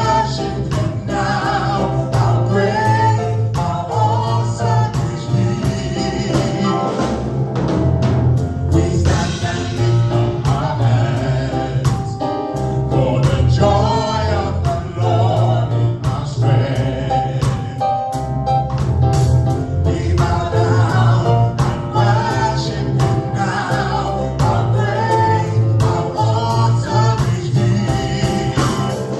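Live gospel praise band with a choir singing over bass, keyboards and drums.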